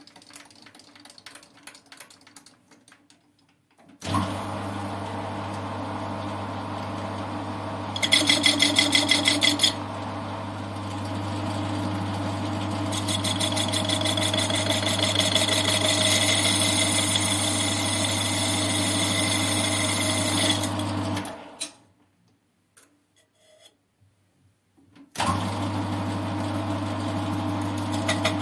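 CJM280 benchtop lathe starting up and running steadily with its motor hum, while the cutting tool works a thin adapter ring. There is a brief rapid rattle about eight seconds in, then a longer stretch of higher-pitched cutting noise. The lathe stops about twenty seconds in and is started again a few seconds later.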